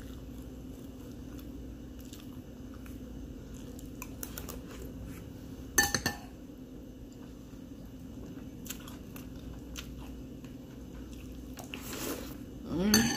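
Metal spoon clinking against a ceramic cereal bowl, with one sharp clink about six seconds in, and cereal being chewed, over a steady low room hum. A brief voice sound comes in near the end.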